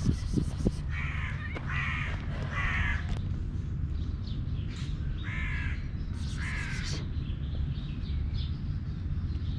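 A crow cawing: three harsh caws in quick succession about a second in, then two more a few seconds later.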